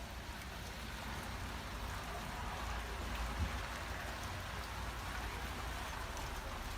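Steady patter of volcanic ash and small lapilli falling, loud and sounding just like rain, with a low rumble underneath.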